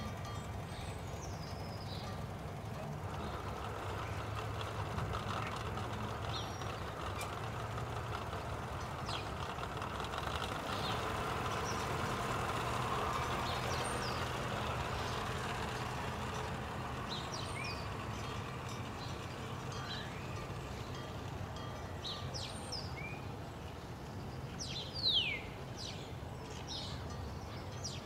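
Town ambience: a steady low rumble of distant traffic with birds chirping here and there, more often in the second half. One louder, falling chirp about 25 seconds in.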